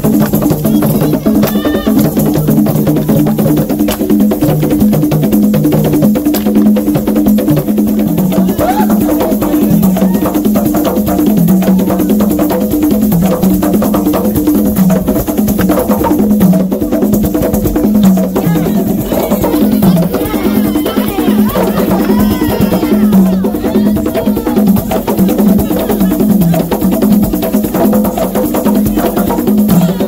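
Traditional Congolese dance music: fast, continuous hand drumming on tall wooden drums, with voices over it.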